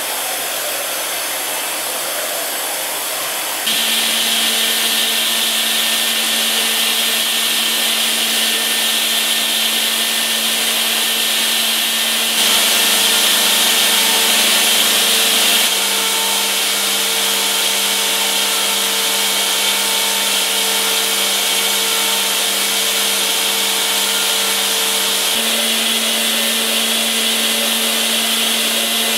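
Brother Speedio CNC machining center milling metal. For the first few seconds a 40 mm bull-nose end mill cuts with a steady rushing noise. About four seconds in the sound turns louder, with a steady high spindle whine over a cutting hiss, as a 2 mm ball end mill runs at 27,000 rpm. The pitch and level shift abruptly a few times.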